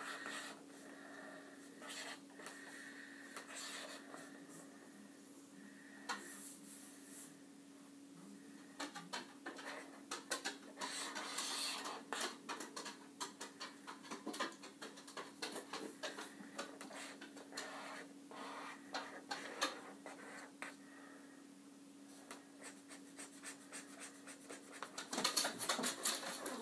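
Felt-tip marker strokes scratching across paper on a clipboard: a long run of short strokes, with quick back-and-forth hatching near the end, over a steady low hum.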